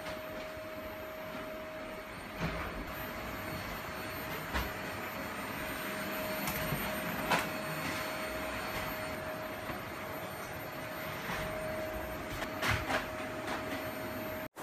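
Steady rushing noise with a constant mid-pitched hum under it, and a few light knocks and clicks scattered through.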